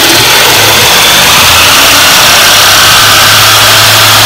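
Corded jigsaw running steadily at full speed as its blade saws through a shiplap board.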